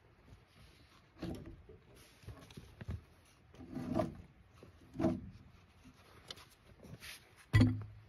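Scattered knocks and thumps of wood and metal as a log is handled on a stopped bandsaw sawmill's bed, four separate thumps, the loudest a deep thunk near the end as the log clamp lever is worked.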